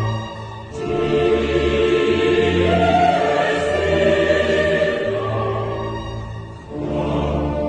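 Choral music: held, sustained chords sung by a choir over a low bass, changing chord about a second in and again near the end.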